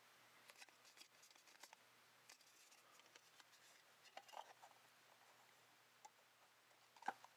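Near silence with faint scattered ticks and rustles: a thin sheet of scribed styrene plastic being creased and set in place by hand.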